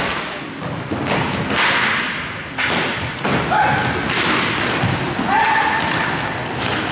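Roller hockey in play: skate wheels rolling across the court floor, with repeated thumps and sharp knocks from sticks striking the puck and the floor, echoing in the hall.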